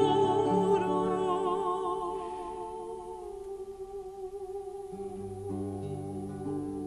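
Two female opera voices, a mezzo-soprano and a soprano, hold the closing notes of a baroque duet with vibrato, fading away over the first few seconds. About five seconds in, the plucked continuo instruments come in quietly with a low bass line.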